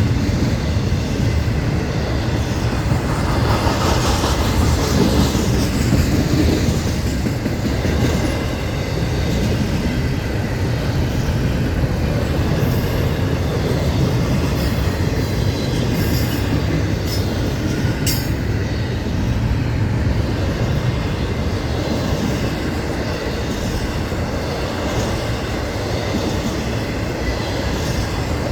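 Florida East Coast Railway freight train of empty intermodal cars rolling past close by: a steady, loud rumble of wheels on rail.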